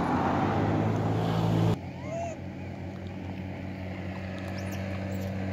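A motor running steadily with a low, even hum; it drops suddenly in level about two seconds in. A few short high chirps sound over it.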